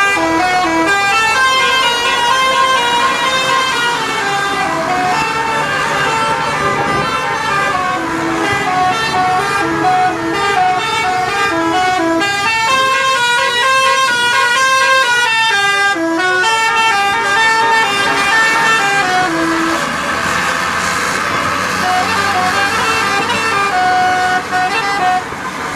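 Indonesian bus 'telolet' horn, a set of multi-tone air horns, playing a fast tune of short stepped notes. Over the last few seconds the tune gives way to a steadier blare with a few held notes.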